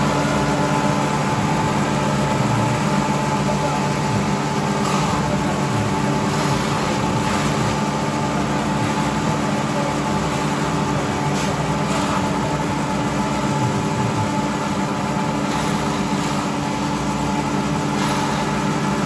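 Several engine-driven grass choppers running at once, a steady mechanical drone as grass is fed in and chopped.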